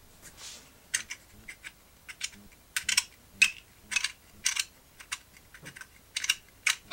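Irregular sharp clicks and clacks of hard plastic: 3D-printed PLA gears and frame knocking and snapping together as they are handled and fitted by hand.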